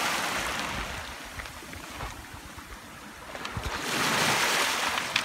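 Sea surf washing onto the shore: the wash is loud at first and dies down about a second in, then another wave builds and breaks around four seconds in.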